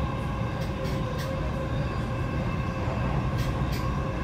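Dubai Metro train running at speed, heard from inside the carriage: a steady low rumble of wheels on track with a steady hum of tones over it, and a few brief high clicks.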